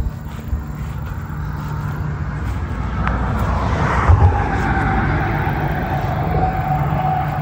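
A motor vehicle running steadily with a low hum and rumble. About halfway a higher steady drone joins it and the sound grows a little louder.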